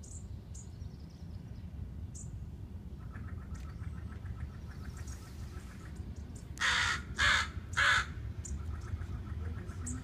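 A crow cawing three times in quick succession, harsh calls a little under half a second each, about seven seconds in.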